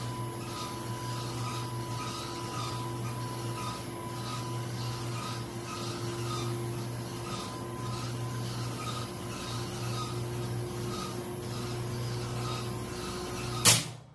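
Universal tensile testing machine running steadily while it stretches a polyurea specimen: a steady hum with a faint regular pulsing about twice a second. Near the end the stretched polyurea specimen snaps with a single sharp, loud crack.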